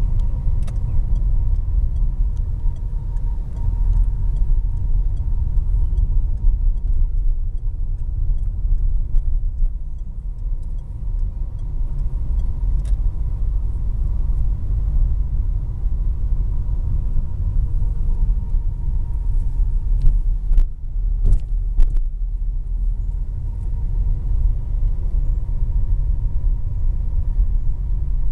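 Steady low rumble of a car's engine and tyres on the road, heard from inside the moving car, with a few sharp clicks about twenty seconds in.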